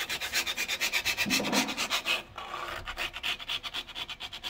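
A small hand scraper scrapes old silicone and filler residue off the edge of a kitchen worktop along the tile joint, in quick, rapid strokes. The strokes turn lighter about halfway through.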